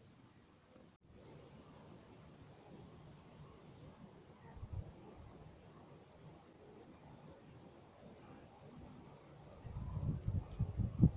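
A chorus of chirping insects that starts about a second in: a continuous high-pitched trill with a second high chirp repeating about twice a second. Low rumbling swells up near the end.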